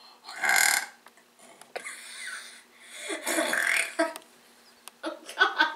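A young woman laughing and making silly noises with her voice, in four short bursts with pauses between them.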